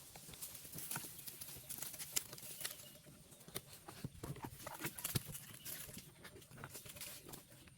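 Goats moving about, their hooves clicking and tapping irregularly on hard ground.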